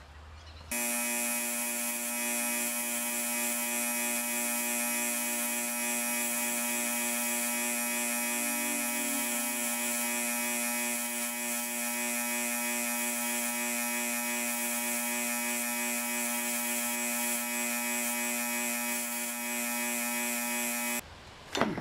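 Bench grinder with a wire wheel running at speed, a steady high-pitched motor hum with a hiss over it, while a small rusty spring is held against the wheel to clean it. The footage runs at four times speed. The sound starts abruptly about a second in and cuts off shortly before the end.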